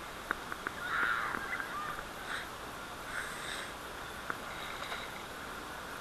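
Shallow water rushing steadily over rock as feet wade and slosh through it, with a few sharp little splashes. Short harsh calls stand out about one, two and three seconds in.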